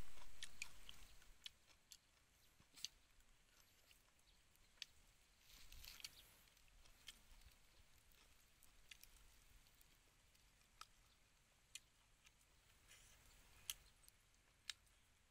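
Faint eating sounds: quiet chewing, with occasional light clicks of chopsticks against a plate at irregular intervals.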